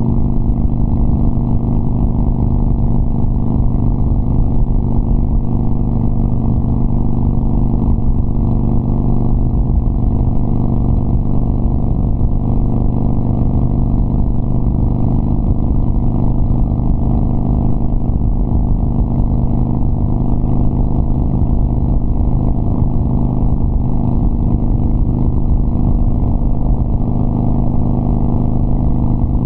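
Exhaust note of a Harley-Davidson Sportster Iron 1200's air-cooled 1200 cc V-twin through KhromeWerks 3-inch slash-cut mufflers, under way at a steady engine speed with no revving.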